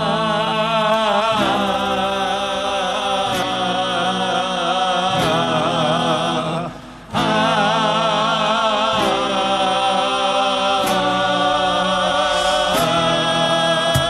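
Live Chilean folk group singing together in slow harmony, men's voices with vibrato, over acoustic guitars that strike a new chord about every two seconds. The music drops out briefly about halfway, then resumes.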